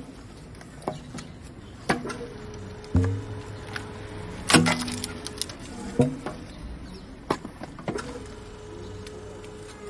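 Logs cracking and splitting under a hydraulic log splitter: a series of sharp wood cracks about a second apart, the loudest about halfway through, over a steady hum.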